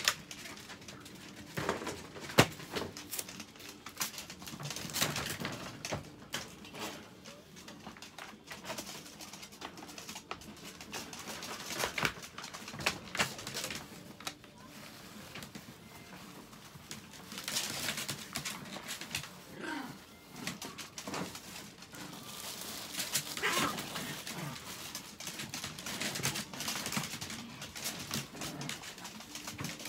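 A plastic pet toilet tray being handled on a plastic tarp: a string of irregular clicks, knocks and rustles.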